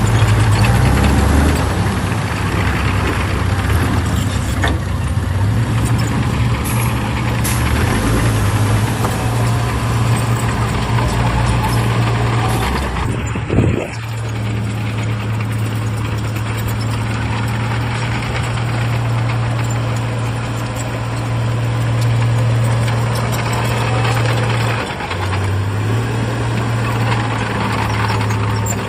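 The heavy diesel engine of earthmoving machinery runs steadily. About halfway through there is a single brief, sharp bang.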